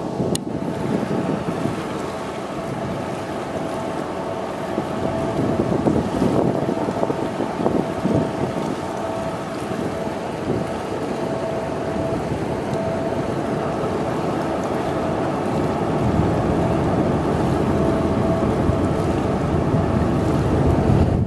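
Wind buffeting the microphone, a fluctuating low rumble over a steady hum with a faint constant tone; the rumble grows stronger over the last few seconds.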